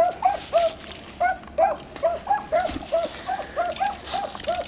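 Beagles giving tongue on a rabbit's scent trail: a fast, steady run of short, repeated baying barks, several a second, from more than one hound, the sound of the pack driving a chase.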